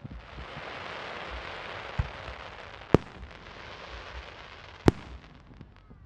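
Fireworks going off: a dense, continuous crackling that is pierced by sharp bangs. A smaller bang comes about two seconds in and two loud ones about three and five seconds in, and the crackling dies away near the end.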